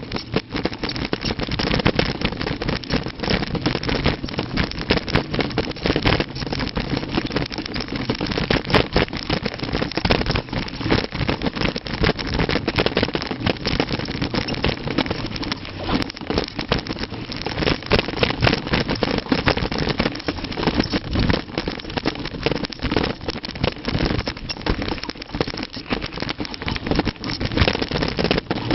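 Mountain bike rattling and its tyres rumbling over rough trail on a descent: a constant noisy rumble full of small knocks and clatters.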